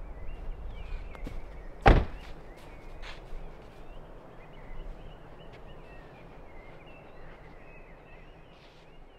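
A car door is slammed shut once, about two seconds in: a single sharp thunk, with a few lighter clicks and knocks around it.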